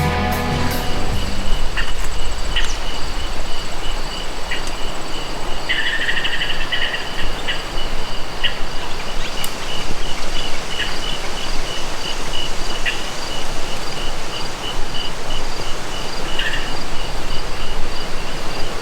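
Insects chirping in an even, pulsing rhythm with a fainter steady trill above it, over a constant rushing outdoor noise; a louder burst of chirring about six seconds in lasts around a second and a half.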